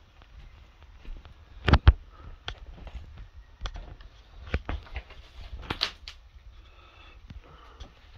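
Footsteps and scuffs over a litter-strewn floor: irregular knocks, crackles and thumps, the loudest thump about two seconds in.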